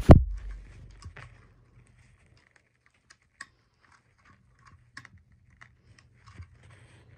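A thump right at the start, then faint, scattered clicks and small knocks as the parts of a DVD player being taken apart are handled, over a low steady hum.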